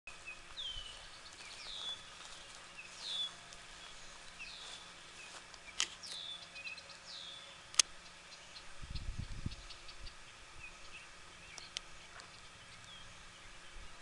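A bird calling over and over with high, down-slurred calls, about one a second for the first half, then only fainter short chirps. Two sharp clicks cut through the calls near the middle, the second one the loudest sound, and a brief low rumble follows a second later.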